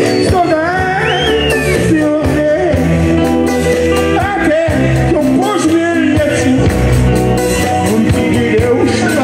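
A live band playing through a PA: sustained bass and keyboard chords, with a sung or lead melody that glides and wavers over the top.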